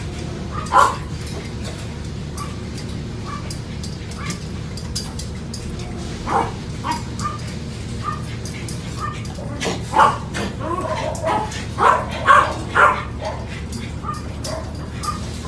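Puppies yipping and barking in play: a short bark about a second in, another around six seconds, then a quick flurry of yips and barks from about ten to thirteen seconds, over a steady low hum.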